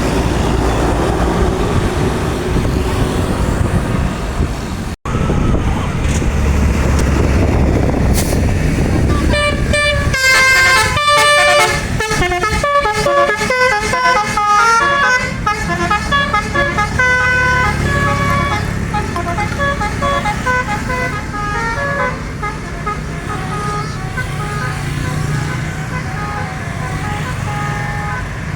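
Indonesian 'telolet' bus horn playing a quick melodic tune of short stepped notes, starting about a third of the way in and growing fainter near the end. Before the tune there is vehicle engine and road noise.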